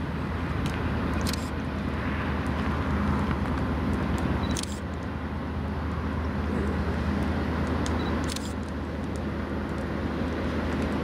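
Diesel locomotives on an approaching train, which look like GE Dash 9s, running with a steady low engine rumble, with a couple of brief clicks.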